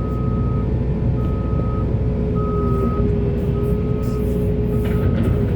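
Heavy construction machine's diesel engine running steadily with a reversing alarm beeping, about four even beeps a little over a second apart.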